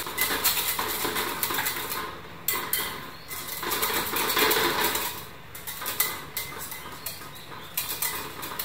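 Wire balloon whisk beating a thick cream cheese batter in a glass bowl, its wires ticking and scraping rapidly against the glass, with two brief pauses.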